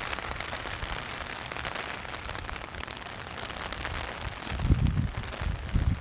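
Rain falling steadily in a dense, fine patter. From about four and a half seconds in, irregular low thumps on the microphone join it.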